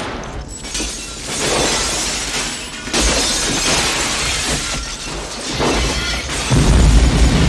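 Window glass shattering as a body crashes through a pane, followed near the end by an explosion with a deep boom, over an orchestral film score.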